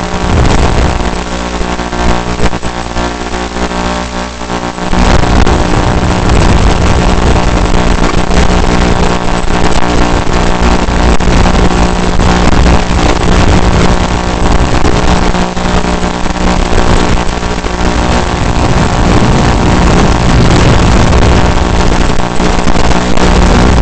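Mobula7 tiny-whoop quadcopter's brushless motors and ducted propellers buzzing in flight, a steady whine that gets louder from about five seconds in.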